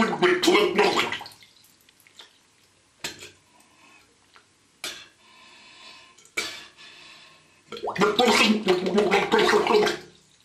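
A man's voice under bathwater, garbled and bubbling as he vocalises with his mouth submerged, in two spells: for about the first second and again from about eight seconds in. Between them there is a quiet stretch of faint hiss and a few small water clicks while he holds a tube to his mouth.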